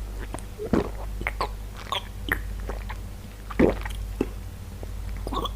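Close-miked eating sounds: pizza bitten and chewed, a string of sharp, wet mouth clicks and smacks at irregular intervals, over a steady low hum.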